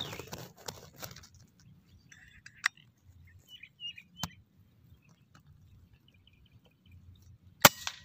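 A single air-rifle shot fires near the end, a sharp crack followed by a short ringing tone. Before it come handling rustles and a few faint bird chirps.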